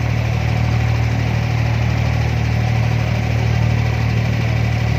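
Wooden abra water taxi's diesel engine running steadily under way: a constant low drone heard from aboard the boat.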